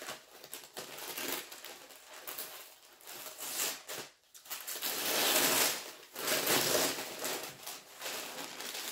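Brown kraft paper wrapping being crinkled and torn open by hand, in several rustling bursts, the loudest about five to six seconds in.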